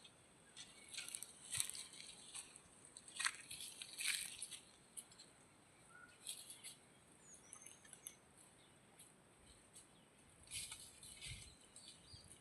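Faint, irregular crunching and rustling made of short, sharp crackles in loose clusters, with a brief high chirp about seven seconds in.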